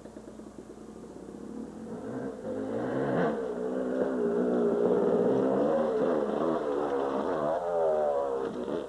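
Yamaha YZ dirt bike engine approaching and revving, growing louder about two seconds in. Near the end its pitch swings up and down as the throttle is worked while the bike jumps.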